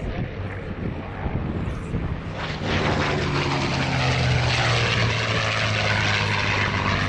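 WWII piston-engined propeller warbird making a low fly-by. The engine drone swells suddenly about two and a half seconds in and stays loud, its pitch slowly sinking as the aircraft passes.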